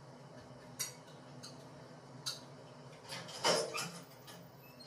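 A few sharp clinks of an eating utensil against a dish, the loudest cluster about three and a half seconds in.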